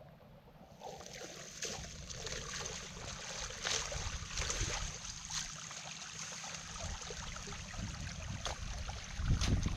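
Water trickling and splashing in shallow floodwater, with scattered short splashes.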